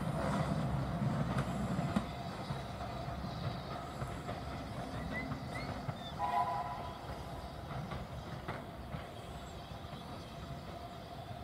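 A train of vintage passenger carriages rolling away over the track, its low rumble slowly fading. About six seconds in, a short high tone sounds once.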